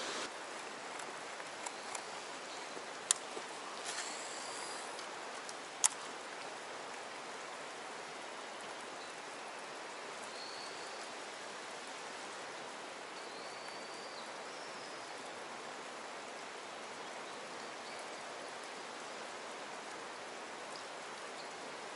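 Steady, even hiss of moving water, with two sharp clicks about three and six seconds in and a few faint, short high chirps.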